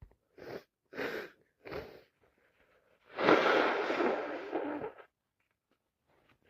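A person sneezing from a cold: three short catching breaths, then about three seconds in one loud, drawn-out sneeze.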